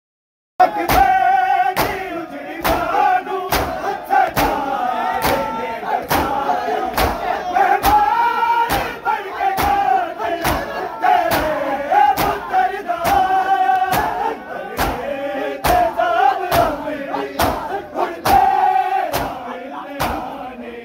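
A crowd of men chanting a mourning lament together while beating their chests with open hands in matam, the slaps landing in a steady rhythm about one and a half a second. It starts abruptly about half a second in.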